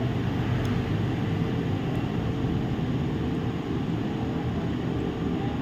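Steady whooshing background noise over a low hum, like a fan or other running machine, with no change in level.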